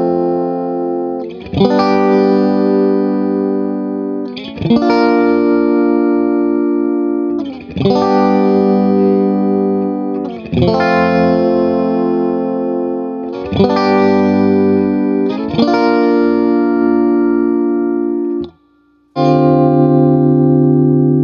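Xotic electric guitar played through a PC-2A photo-optical tube compressor pedal: seven chords are struck about every two to three seconds, each ringing out slowly and evenly. The sound cuts out briefly near the end before a last chord is struck.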